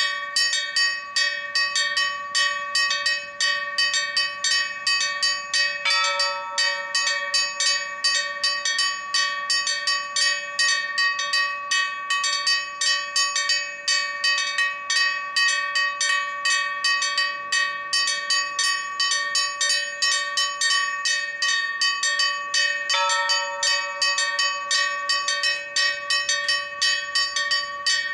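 A peal of four church bells of the Church of Our Lady of Hope in Mosta, Malta, struck in a quick, steady stream of strokes that ring on into one another: a Maltese festa peal (mota) before the High Mass. Twice, about six seconds in and again about five seconds before the end, another bell comes in with a heavier stroke.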